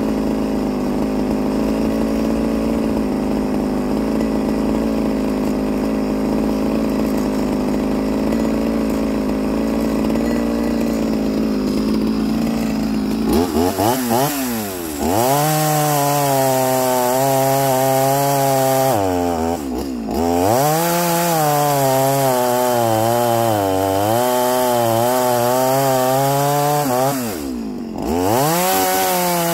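Stihl MS170 two-stroke chainsaw fitted with a big-bore kit, running at steady high revs unloaded. About halfway through it cuts into a log: the engine note drops under load and swings up and down, with two brief throttle-offs where the revs fall and pick up again.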